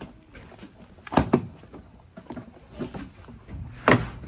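Sharp knocks and thumps from hands fitting mats and trim inside a van: a close pair about a second in, a few lighter taps, and a loud knock near the end.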